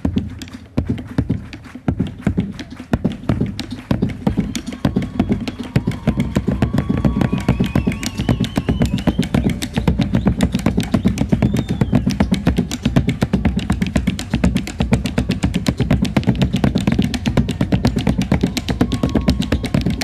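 Bombo legüero drums beating a fast, steady chacarera rhythm of struck head and wooden rim, opening a chacarera.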